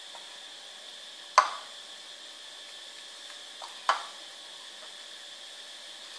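A kittens' food bowl knocks sharply against a tile floor twice, with a short ring, as two kittens shove into it while eating. The first knock, about a second and a half in, is the loudest; the second, near four seconds, is softer. A steady hiss with a faint high whine runs underneath.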